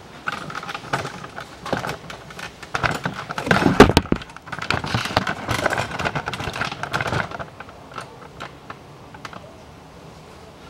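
Ratchet wrench clicking in quick runs as the brake caliper bolts are tightened, with a heavier knock about four seconds in. The clicking thins out to a few faint ticks after about seven seconds.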